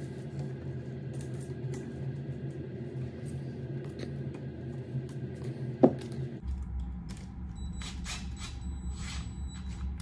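Small handling sounds of wires and an outlet over a steady low hum, with a sharp click just before six seconds in. Then a DeWalt cordless drill runs slowly with a faint high whine, tightening a wire on the outlet's terminal screw.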